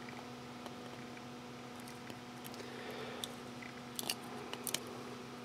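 Flush-cut snips nipping small bits of 3D-printed plastic off a print: a few sharp snaps, most of them in a cluster about four seconds in, over a steady hum.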